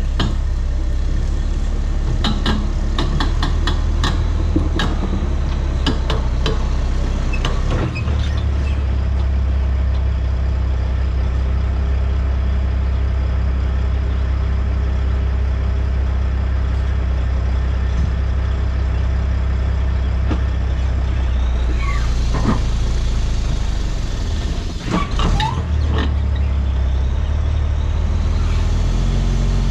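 Diesel engine of a dump truck with pup trailer running steadily as the rig manoeuvres on gravel. There are rattles and clanks in the first several seconds and a hiss of air brakes from about three quarters of the way in.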